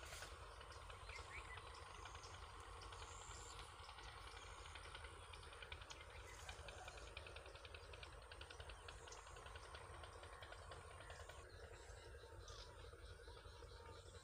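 Faint outdoor field ambience: scattered high bird chirps over a steady high insect drone, with a rapid run of fine ticks in the middle.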